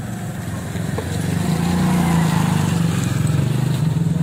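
A small motorcycle-type engine running with a steady, rapidly pulsing low drone. It grows louder about a second and a half in and eases off near the end.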